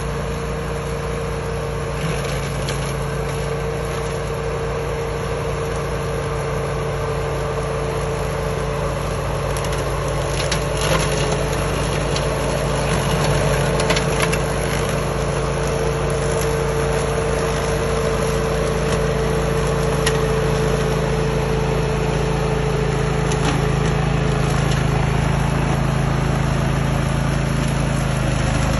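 Grillo 10.27 ride-on slasher mowing, its engine running steadily under load with a steady hum from the cutting deck. A scatter of short sharp ticks and knocks comes about a third to halfway through.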